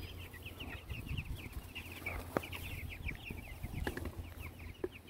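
A flock of young meat chickens peeping continuously, many short falling cheeps overlapping one another. A few sharp ticks sound about two and a half, four and five seconds in.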